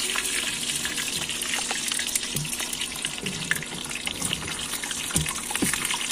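Hot oil sizzling in a pan on a portable gas stove as food fries, a steady hiss with many small crackles.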